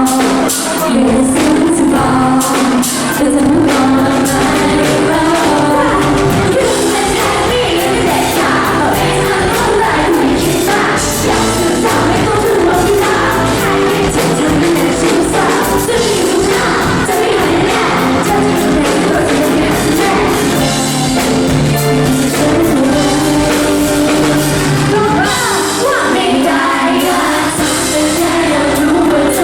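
Thai pop song performed live by a female vocal group: voices singing over loud backing music with a steady drum beat.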